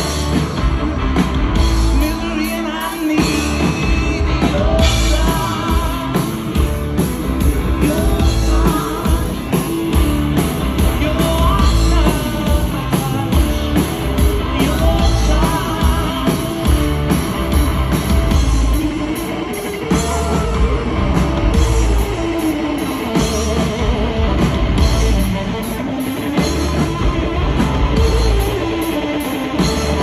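Live blues-rock band playing loud: a drum kit keeping a steady beat under electric guitar and a sung lead vocal.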